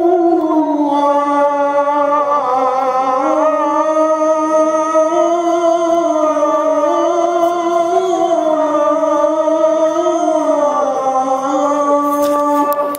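A man's solo voice chanting in long held notes that bend slowly up and down, in one almost unbroken melodic line; it drops away right at the end.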